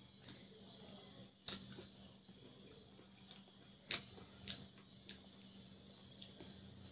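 Eating sounds from a hand-fed meal of rice and chicken curry: a handful of sharp, wet mouth clicks and smacks while chewing, with fingers working rice on a plate, the loudest click about four seconds in. A faint steady high-pitched whine runs underneath.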